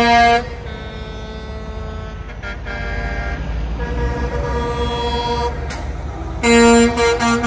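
Semi-truck air horns blowing as big rigs drive past, over low diesel engine rumble. A loud horn cuts off about half a second in, quieter horn tones follow, and loud horn blasts return near the end in a few short bursts.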